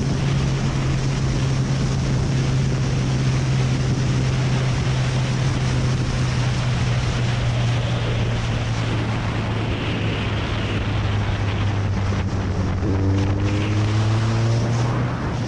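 Sport motorcycle riding at a steady speed: a steady low engine drone under heavy wind rush on the helmet microphone. Near the end a rising tone joins in as the bike overtakes.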